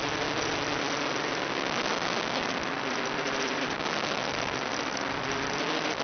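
Steady hiss of static on the analog FPV video link, with faint tones underneath that drift up and down in pitch.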